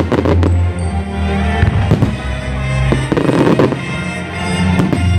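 Aerial firework shells bursting, with repeated sharp bangs and crackling, over loud music with held bass notes.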